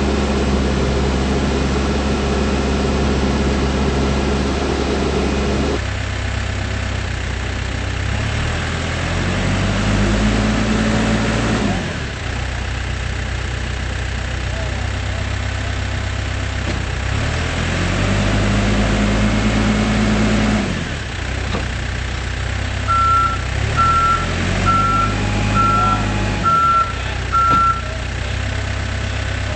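Diesel engine of a Case 580N backhoe loader running, its speed rising and falling back three times. From about two-thirds of the way through, the machine's reverse alarm beeps steadily at about one beep a second.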